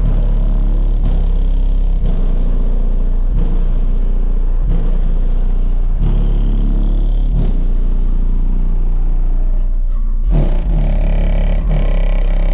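A high-power car audio system with eight Skar DDX subwoofers plays a deep bass track very loud, heard from outside the vehicle. A constant low bass tone sits under a bass line whose notes change about every second and a third, and more of the upper range of the music comes in near the end.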